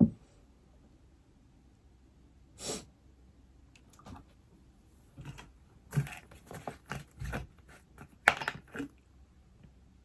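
Irregular taps and clicks of typing and writing on an iPad. There is one short scratchy swish a few seconds in and a quick run of taps in the second half.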